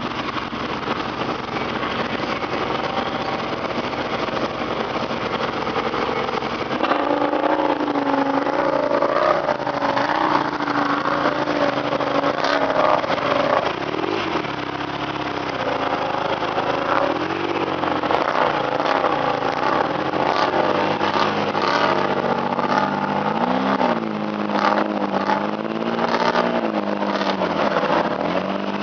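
ATV engine running under changing throttle, its pitch rising and falling as it revs and eases off, with many sharp clicks and knocks, most of them late on.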